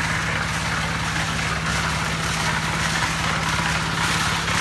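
An engine running steadily at a constant speed, a low even hum with a haze of mechanical noise above it and no change in pitch.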